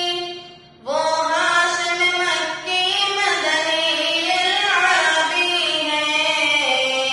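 A boy singing a naat solo, one voice with no instruments, in long phrases whose pitch slides and bends. A held note fades out at the start, and after a short breath a new phrase begins about a second in and carries on.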